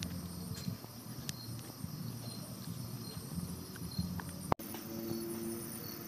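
Crickets and other night insects chirping steadily in repeating high trills, over a low rustle. A single sharp click comes about four and a half seconds in.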